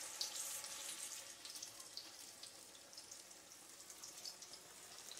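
Cornmeal-dredged crappie fillets frying in a pan of hot oil, a faint steady sizzle with scattered crackles. The oil is bubbling hot enough that the fish cooks quickly without soaking up oil.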